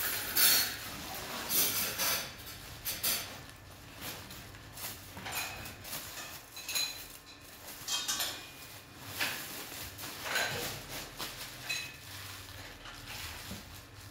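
Plastic packaging crinkling and rustling in irregular bursts as an insulated lunch-box carrier is unzipped and opened, and a thermal food container is taken out of its plastic wrap.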